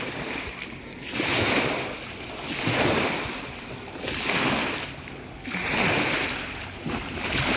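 Small lake waves washing in and drawing back in a steady rhythm, about one every second and a half.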